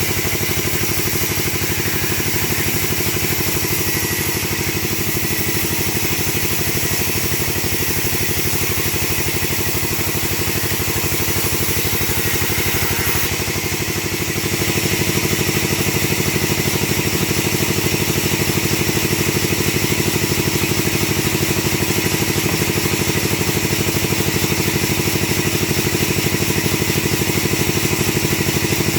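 Engine of a wood-cutting machine running steadily with a fast, even beat. It gets a little louder about halfway through.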